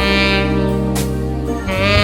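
Background music: a jazzy saxophone line over a steady bass.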